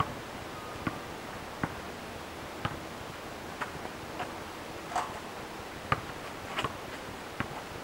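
Basketball bouncing on asphalt along with players' footsteps: short, sharp knocks spaced irregularly, roughly one a second, over a steady outdoor hiss.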